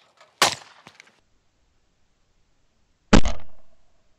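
Two shotgun reports from an over-and-under shotgun firing at a clay target: a sharp crack about half a second in, then a louder shot with a deeper boom and a longer decay about three seconds in.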